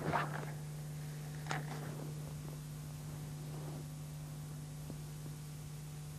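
Steady low hum in the old videotape's sound track, with a couple of faint brief sounds near the start and about a second and a half in.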